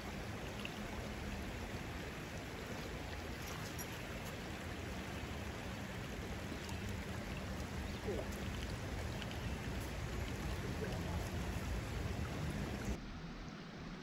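Shallow creek water running over stones, a steady rush of flowing water. Near the end it cuts abruptly to a quieter, duller background.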